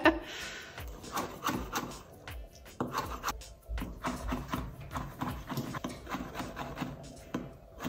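Knife chopping fresh herbs on a cutting board: many quick, irregular strokes, each with a dull knock.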